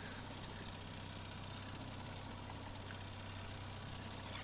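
Boat's outboard motor running at a steady low trolling idle, a constant low hum under a hiss of wind and water.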